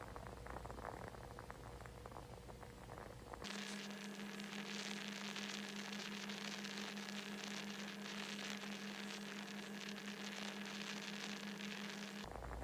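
Steady hiss and static with a low steady hum, switching on abruptly a few seconds in and cutting off near the end; no snoring is heard.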